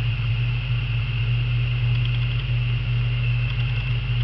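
A steady low hum with a high hiss above it, unchanging throughout.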